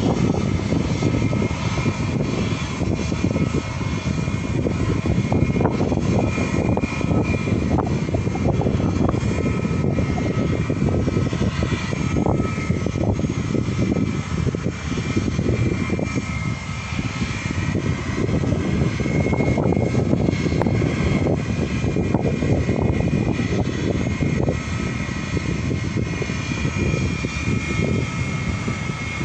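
Jet engines of a Bangkok Airways Airbus airliner running at taxi power, a steady high whine over a low rumble that rises and falls.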